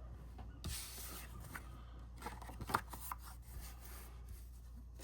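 Card stock and paper pieces being handled on a work surface: a short rustling slide about half a second in, then a few light taps and clicks of paper near the middle.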